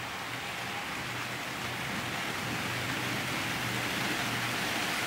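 OO gauge model trains running on the layout: a steady rushing of wheels on the rails that grows slowly louder.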